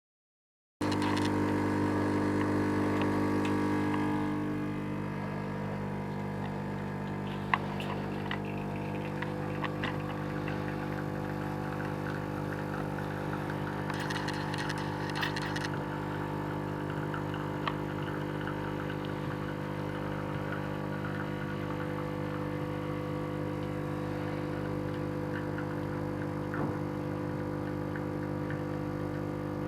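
DeLonghi 35.31-series espresso machine's vibratory pump humming steadily, louder for the first few seconds and then settling lower, with a few faint ticks.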